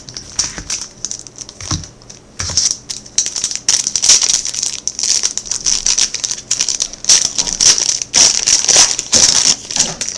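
Plastic wrapper of a trading-card pack being torn open and crinkled by hand, in irregular spurts that get busier from about two seconds in.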